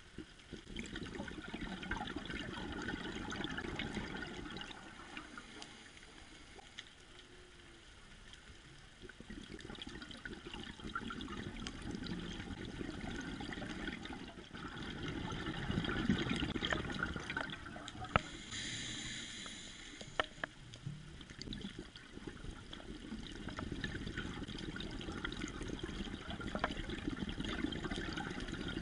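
Scuba diver's regulator bubbles, a muffled bubbling rush heard underwater through a camera housing, swelling and fading in long waves several seconds apart with the breathing. A few sharp clicks and a short hiss come about two-thirds of the way through.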